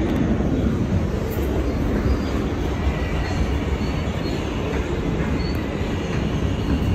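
R160 subway car running on the rails: a steady low rumble of wheels and running gear, with a few faint, brief high squeals from the wheels.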